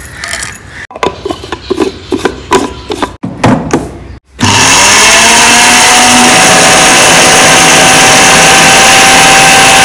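Brief clatters as dry spices are tipped into a small glass grinder jar and the jar is pressed onto its base. Then, about four seconds in, the Westpoint dry-mill grinder's motor starts, its whine rising quickly and then holding steady and loud as it grinds the spices, fennel and cumin seeds among them.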